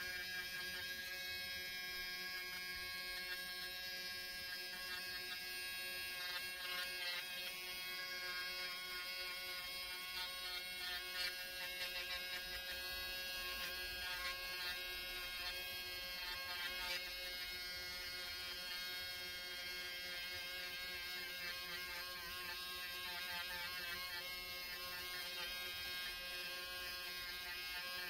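Budget handheld electric nail drill running steadily with a thin motor whine while its needle-shaped bit works along the edge of a fingernail.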